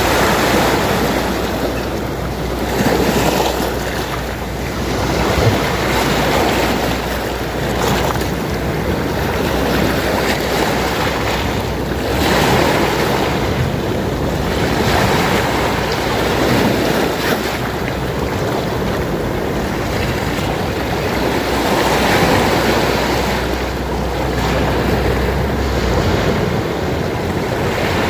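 Sea waves breaking and washing on the shore, the surf swelling and falling back every few seconds, over a steady low rumble.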